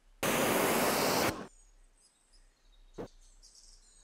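A loud rushing hiss, lasting just over a second, starts abruptly and then fades away. After it there are faint bird chirps and a single short knock about three seconds in.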